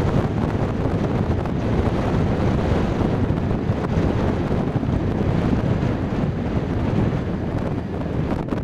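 Strong wind blowing across the camcorder microphone: a steady, loud rush of noise.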